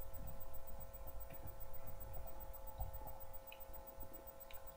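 Steady electrical hum holding several fixed tones, with a low, uneven rumble beneath it; no speech.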